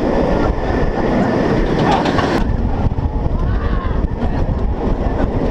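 Roller coaster train running on its track, with heavy wind rumble on the ride-mounted camera's microphone; a steady loud rush with a brief brighter surge about two seconds in.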